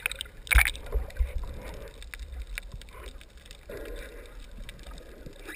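Muffled water sloshing and gurgling heard by a camera held underwater while a snorkeler swims, with a short splash or bubble burst about half a second in.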